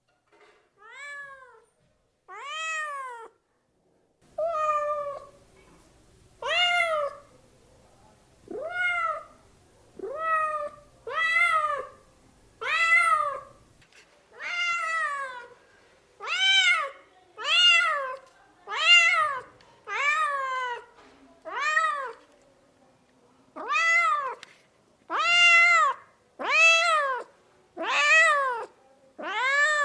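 A domestic cat meowing over and over, about nineteen separate meows, each rising and then falling in pitch. The first three are fainter; from about four seconds in they come louder, roughly one every second or so.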